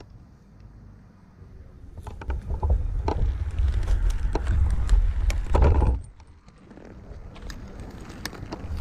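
Climbing spikes and gear knocking and clicking against a dead, rotten trunk as the climber gaffs down it, over a low, uneven rumble that is strongest in the middle.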